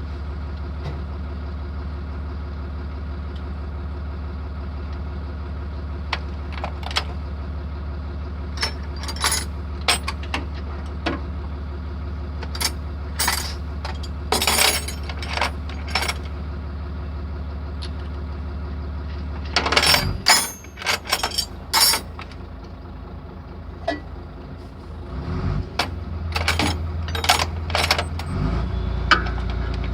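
An engine idling with a steady low hum, with repeated sharp metallic clinks and clanks of tools and parts over it. About two-thirds of the way through, the engine hum breaks up and drops away. Near the end a different steady engine hum sets in.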